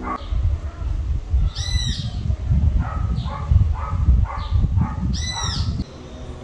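A dog barking repeatedly, with a bird giving a high call twice, about two seconds in and again near the end. The sound drops suddenly shortly before the end.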